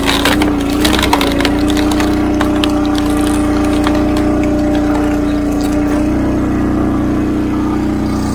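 Wolfe Ridge hydraulic log splitter's gas engine running steadily under load as the ram drives a log through the wedge, its note dipping slightly as the load comes on. Wood cracks and splinters as the round splits, mostly in the first couple of seconds.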